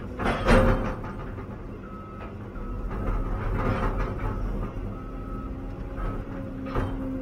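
Cat 316 EL excavator's diesel engine running steadily, heard from inside the cab while the machine works, with a loud rushing crunch about half a second in and softer ones later. Several short high-pitched tones sound on and off in the middle.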